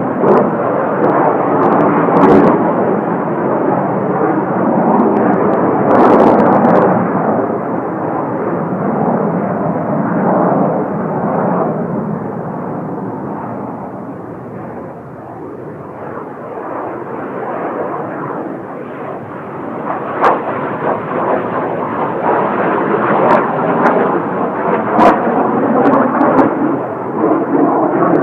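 Kawasaki T-4 jet trainers' twin turbofan engines running loud on takeoff and low passes. The jet noise dips about halfway through, then swells again as more jets come by.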